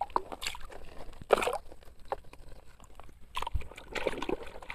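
Sand being scraped and dug out of a toy dump truck's bed, in several short scrapes.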